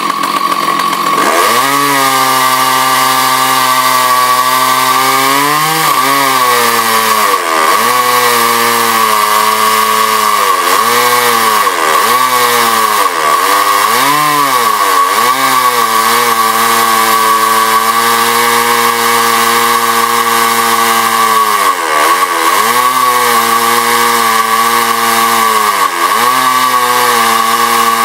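Husqvarna 298 two-stroke chainsaw running at high revs while milling. Its engine note comes in about a second in, holds steady and sags in pitch several times as it bogs under load in the cut before recovering.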